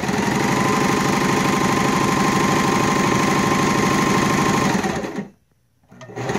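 Sears Kenmore sewing machine (model 385.15408500) running at speed with a rapid, even mechanical clatter and a steady whine. It slows and stops about five seconds in, then starts up again a second later.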